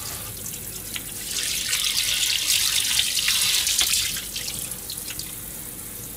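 Kitchen tap running into a stainless steel sink. The water splashes louder for about three seconds as raw chicken livers are rinsed under the stream, then settles back to a steady run.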